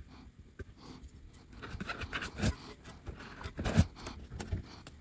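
Faint scraping and a few soft, scattered taps from a metal solder-paste stencil being worked over a PCB as solder paste is spread through it.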